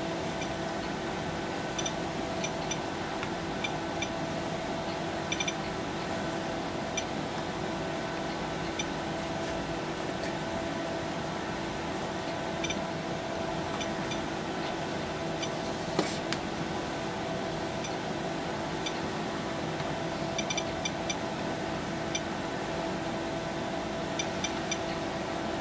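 SOEKS handheld dosimeter's Geiger counter sounding short, high beeps at irregular intervals, now and then in quick runs of several, each beep a detected radiation particle. A steady electrical hum runs underneath.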